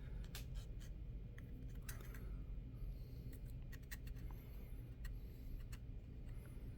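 Protective plastic film being peeled off a Blink video doorbell by hand, scattered faint crinkles and small clicks over a steady low hum; the film is tearing rather than coming off evenly.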